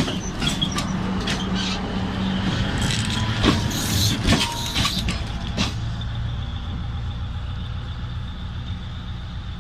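Train running on the track: a steady low rumble with irregular clacks and knocks from the wheels over the rails, the knocking thinning out after about six seconds.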